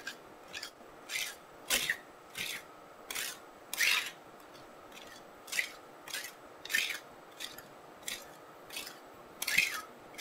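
Steel spatula scraping across a thin sheet of frozen ice cream on a steel cold plate, in short repeated strokes, about three every two seconds.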